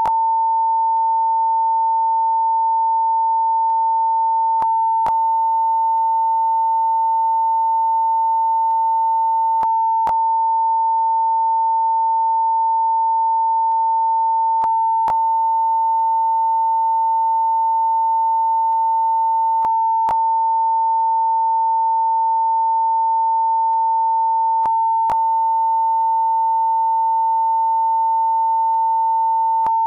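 Censor beep: one steady, unbroken beep tone held at a single pitch, with faint clicks about every five seconds.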